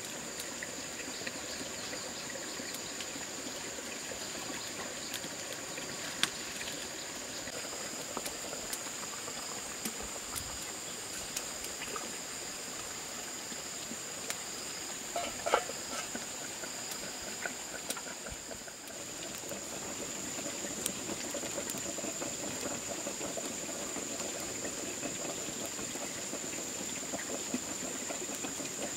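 Water trickling, with a steady high insect drone and occasional light clicks and knocks.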